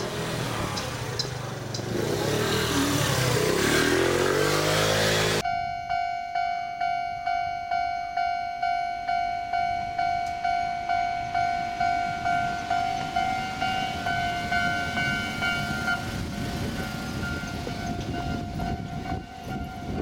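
Enoshima Electric Railway train running with a dense wheel-and-rail rumble. It cuts off suddenly about five seconds in to a level-crossing warning alarm, ringing in even, fading pulses about twice a second: the crossing is closing for an approaching train.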